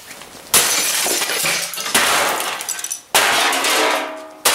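Plastic housing of an Aiwa CD/cassette stereo being smashed apart: four heavy hits about a second and a half apart, each one trailing off over about a second.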